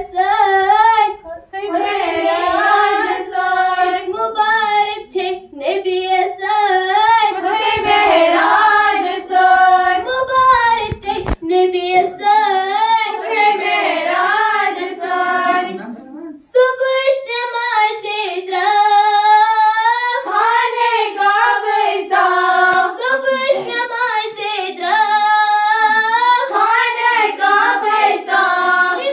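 A group of schoolgirls singing a song together in unison, unaccompanied, into a microphone, with a brief pause about two-thirds of the way through.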